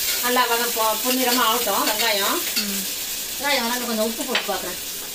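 Sliced onions sizzling in oil in an aluminium pressure cooker, being sautéed, while a metal ladle stirs and scrapes through them in two bouts of wavering, squeaky strokes.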